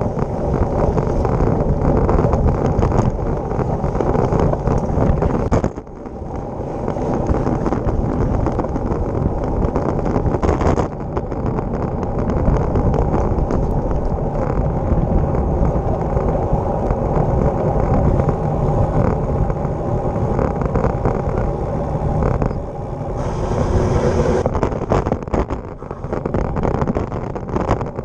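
Wind rushing over a bike-mounted camera's microphone together with the steady hum of road-bike tyres on asphalt while riding at speed, dipping briefly about six seconds in.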